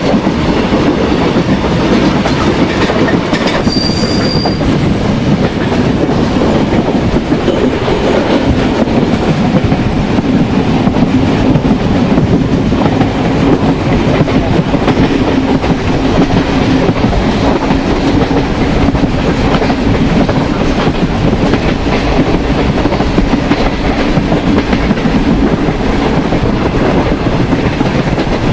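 Express train running on open track: a steady loud rumble of wheels over the rails with clickety-clack. There is a brief high squeal about four seconds in.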